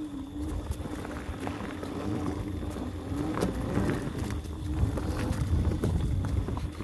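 Mountain bike being ridden along a dirt forest single track: a rough rumble of tyres over dirt and roots with scattered rattles and knocks, and wind buffeting the phone's microphone.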